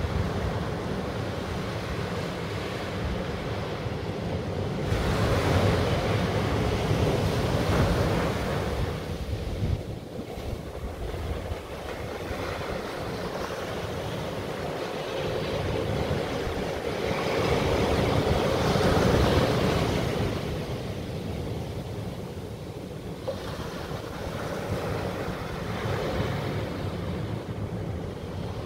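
Small sea waves breaking on a sand and pebble beach and washing back, the surf swelling twice into louder surges and fading between them.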